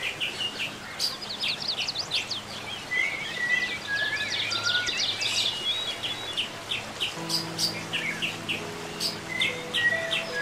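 A chorus of several birds chirping and whistling in quick, overlapping calls. About seven seconds in, soft held music notes come in underneath.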